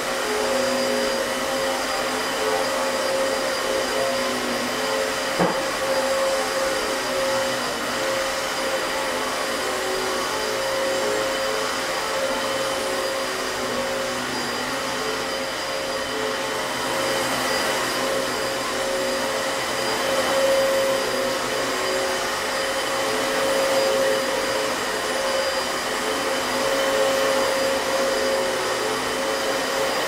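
Vacuum cleaner running steadily with a constant motor whine as it is pushed forward and pulled back over thick plush carpet to lay down lines. A single sharp click comes about five seconds in.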